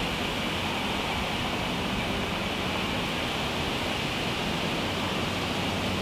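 Steady outdoor ambience with a light breeze, heard as an even hiss-like rush with a low steady hum underneath, picked up by a Rode VideoMic fitted with its foam windscreen.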